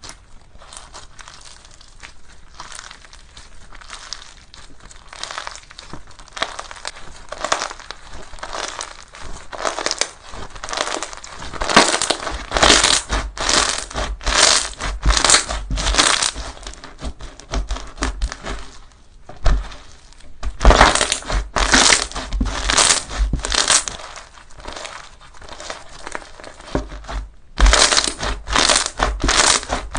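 Slime being pressed and squeezed, crackly squishing sounds; soft at first, then from about a third of the way in a run of louder squishes at roughly two a second, with a couple of short lulls.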